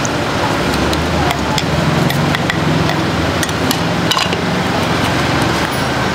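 Cooking sounds at a jeon stall: a steady noisy background with frequent sharp clacks and knocks, the sort made by a spatula and utensils against a griddle and dishes.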